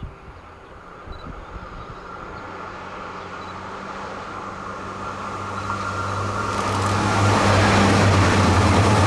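Two coupled Bombardier AGC regional train units approaching and passing close by. A low steady hum grows louder over several seconds, and the wheel and rail noise swells into a loud rush as the train draws level near the end.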